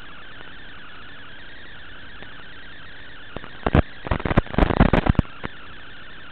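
Steady hiss of an analog FPV video link's audio channel, with a burst of loud crackles and pops between about three and a half and five seconds in as the radio signal breaks up.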